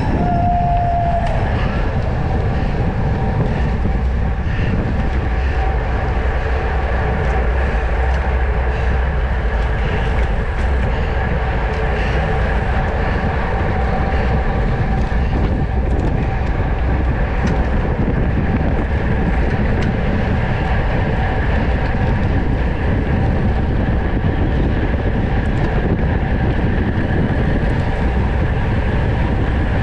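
Steady rush of wind on an action camera's microphone while riding a road bike at race speed, with the hum of tyres and drivetrain under it. A short squeal sounds at the very start.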